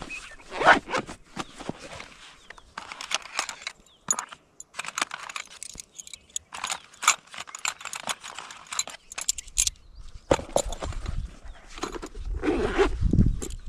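Metal tent pegs clinking and jangling against each other as they are handled and taken out of a zippered case: a string of short, light metallic clicks, with a low rumble near the end.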